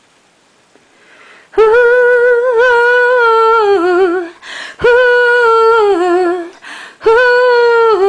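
A woman's voice singing wordless, sustained high notes. They come in about a second and a half in, and three long held phrases each step down in pitch at the end, with short breaths between.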